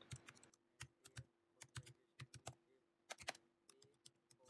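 Faint typing on a computer keyboard: irregular keystrokes, some single and some in quick runs of two or three.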